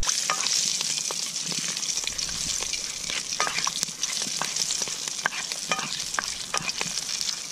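Diced salt pork and pork rind frying in hot vegetable oil in a cast iron Scotch bowl, rendering down toward browned scrunchions: a steady sizzle with frequent crackles and pops, as a spoon stirs the pieces.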